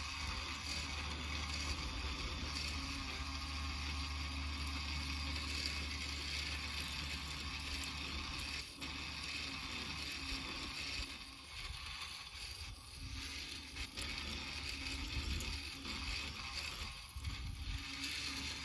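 Greenworks 80V cordless brushless tiller running, its tines churning through turf and soil with a steady low hum, easing briefly twice in the second half.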